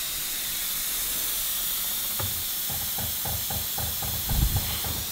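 Air hissing steadily out through an opened valve as a jack is let down, starting abruptly. A low, quick, even thudding joins about two seconds in.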